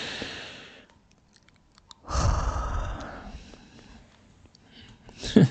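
A man breathing out close to the microphone: a soft exhale at the start, then a heavier sigh about two seconds in. A few faint computer-mouse clicks come between them.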